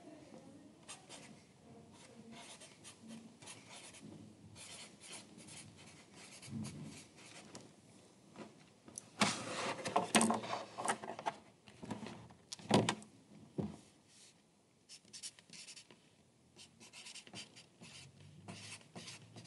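Writing on paper in short, scratchy strokes, with a louder stretch of handling noise a little before the middle and two sharper knocks a few seconds later.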